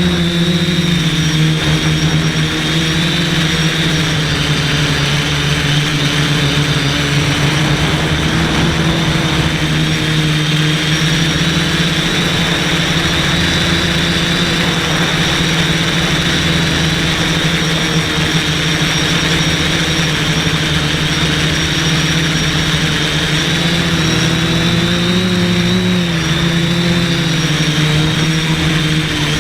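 Quadcopter's brushless motors and propellers running steadily in flight: a strong hum with a thin high whine over a noisy rush. Its pitch wavers briefly about five seconds before the end.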